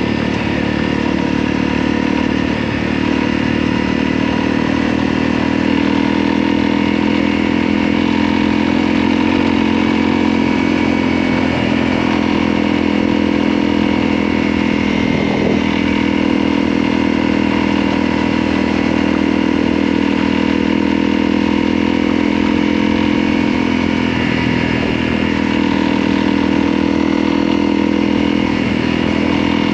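Motorcycle engine running steadily at an even pitch while under way.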